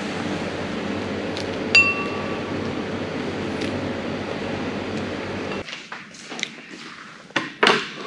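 Dishware clinking once with a short ringing tone about two seconds in, as milk rice is ladled from a metal saucepan into a ceramic bowl, over a steady background hiss. A few light knocks follow near the end as the bowl is set down on a wooden tray.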